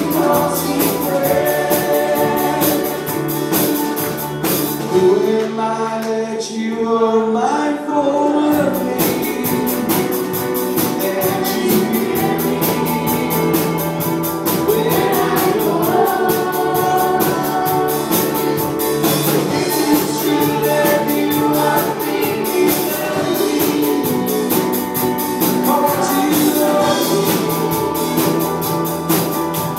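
Live church worship band playing a gospel song with singing: vocals over electric guitar, keyboard and drums. About five seconds in the drums drop out for a few seconds, then the full band comes back in with a steady beat.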